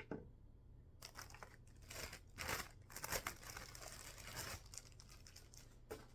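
Packaging being handled and unwrapped: crinkling and rustling for a few seconds, with a light click near the start and another near the end.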